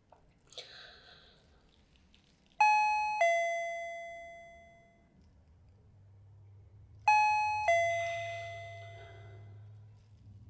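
Two-tone electronic doorbell chime rung twice, a higher note followed by a lower one, each pair ringing out and fading over a couple of seconds.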